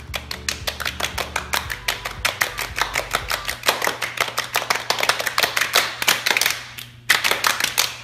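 Many hands slapping a wooden floor in quick succession, a rapid patter of slaps, several a second, that grows louder toward the end. The slapping stops briefly about seven seconds in, then starts again louder.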